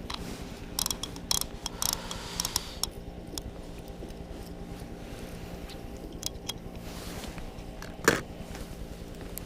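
Scattered light clicks and knocks, most likely fishing tackle being handled, over a steady low hum, with one sharper knock near the end.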